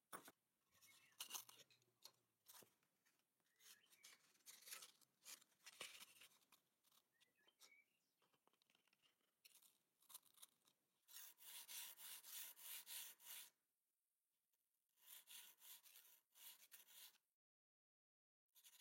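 Faint rubbing strokes in quick runs. The strokes come in bursts of a second or two, with short pauses between them.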